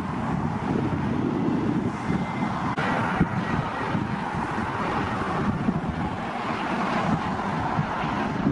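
Wind buffeting the microphone over the steady roar of a private jet's engines on landing approach.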